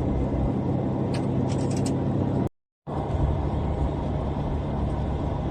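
Steady low rumble with a constant hum, like a vehicle running. It cuts out abruptly about two and a half seconds in and starts again a moment later.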